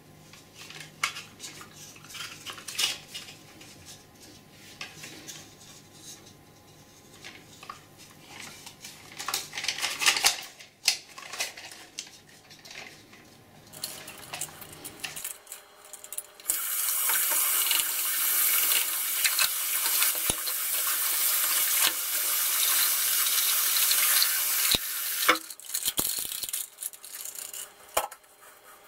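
Plastic parts of a Geberit flush valve clicking and knocking as they are handled and taken apart in a ceramic washbasin. About halfway through, a tap runs water over them for several seconds as they are rinsed, then the clicking of handled parts returns.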